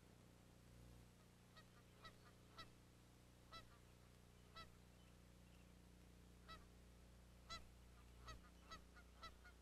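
Faint, distant geese honking: a scattered series of short honks, coming closer together near the end.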